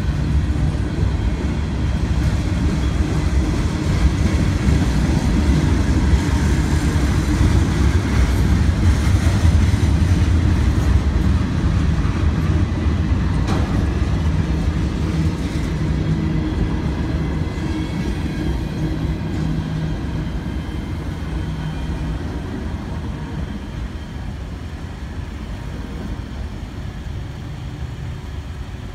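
CSX freight train's cars rolling past at close range, wheels rumbling on the rails; the sound is loudest about a third of the way in and slowly fades as the rear of the train moves away.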